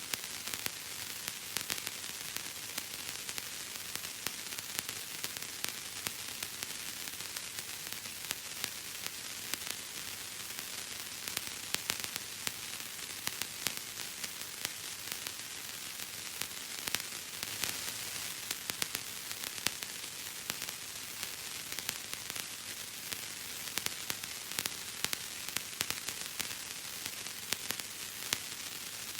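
Bubble wrap being squeezed and popped: many small bubbles bursting in an irregular crackle of sharp clicks over a steady hiss.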